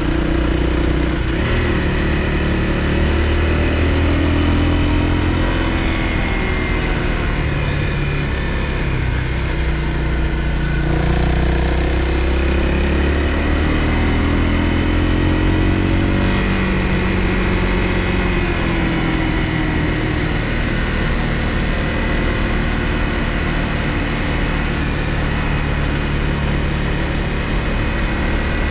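Honda CRF250L's single-cylinder four-stroke engine running on the move, its pitch rising and falling with the throttle over a steady rush of road noise.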